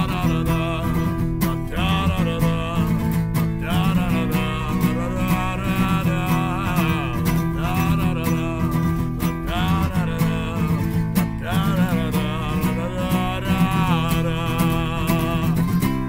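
Acoustic guitar strummed steadily, with a man's voice singing over it.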